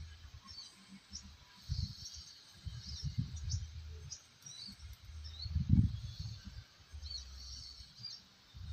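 Small birds chirping over and over, high and brief, with irregular low rumbles and bumps on the microphone; the loudest bump comes a little before six seconds in.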